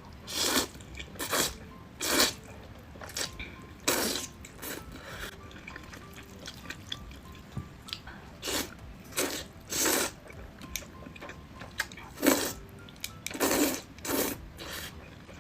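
Close-up slurping of spicy instant noodles, a series of short wet slurps with a quieter pause in the middle. Faint background music under it.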